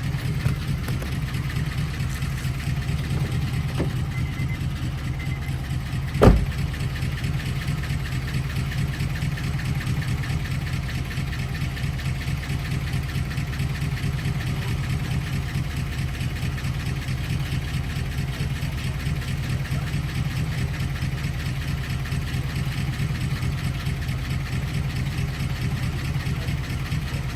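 2003 Honda car engine idling steadily with a low, even rumble after its ignition lock was repaired. There is a single sharp knock a little over six seconds in.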